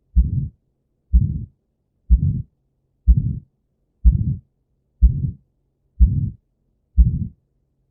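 Heart sounds heard on auscultation with the murmur of aortic stenosis: a regular beat about once a second, eight in all. Each is a sharp first heart sound followed by a systolic murmur lasting about a third of a second, all low-pitched.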